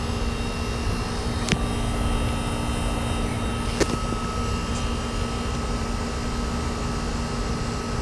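Amana central air conditioner's outdoor condensing unit running with a steady hum of compressor and condenser fan, while low on refrigerant and being charged with R-407C. Two faint clicks come about a second and a half in and again near four seconds.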